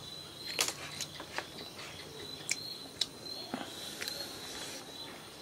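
Close mouth sounds of eating with the hands: chewing and lip-smacking, with a few sharp smacks, the loudest about half a second and three seconds in. A steady high insect chirping runs underneath.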